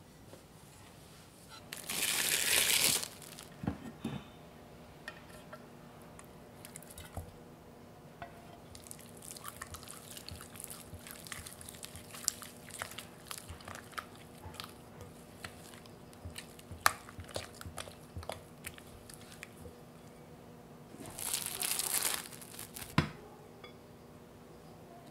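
Red silicone spatula stirring thick chilled custard cream in a glass bowl: soft, sticky scrapes and small clicks against the glass. Two brief louder noisy rustles break in, about two seconds in and again near the end, the second followed by a sharp knock.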